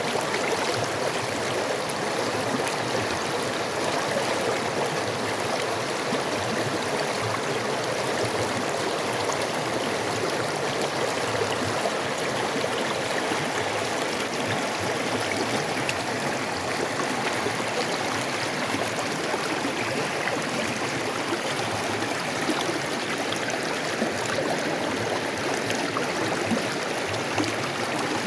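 Creek water flowing and babbling over stones, a steady rushing with fine splashing and gurgling.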